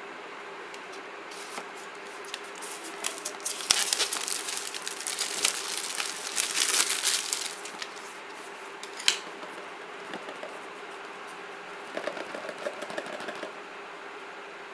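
Small knife blade slitting and scraping through the plastic shrink-wrap seal on a phone box, with the film crinkling and tearing, in scratchy bursts through the first half. A sharp click comes near the middle, and lighter rustling of the film comes later, over a faint steady hum.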